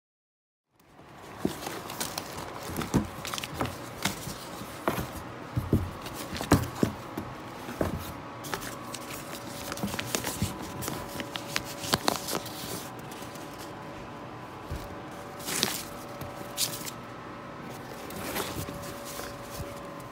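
Rustling and irregular light knocks from a terry-cloth bathrobe being handled close to a phone's microphone, over a faint steady hum.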